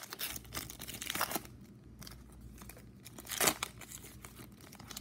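Foil wrapper of a 2010-11 Panini Zenith hockey card pack crinkling and tearing as it is pulled open by hand, in irregular crackles with a sharper rip about three and a half seconds in.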